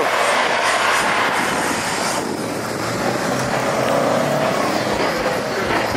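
Cars driving past on a street, with continuous engine and tyre noise. One engine's pitch rises slowly near the middle.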